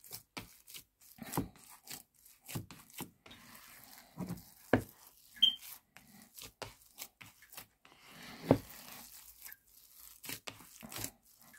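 A bare hand squeezing and kneading a soft mix of mashed potato and shredded chicken in a plastic bowl: irregular wet squishes and short rubbing noises.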